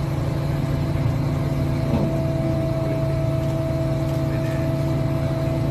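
Crane engine running steadily under load as it hoists the monument on chains. A steady whine joins about two seconds in and cuts off near the end.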